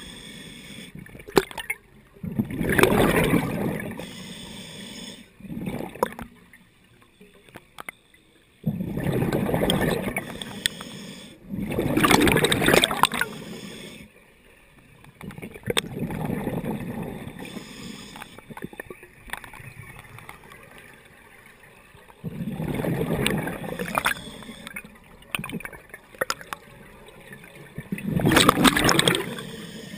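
Scuba diver's regulator breathing underwater: loud bubbling exhalations come every few seconds, with quieter stretches between breaths.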